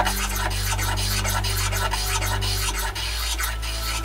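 Metal block plane scraping along the corner of a wooden jointer plane body in short, quick strokes, chamfering the edges. Background music with held low notes plays underneath and changes chord about three seconds in.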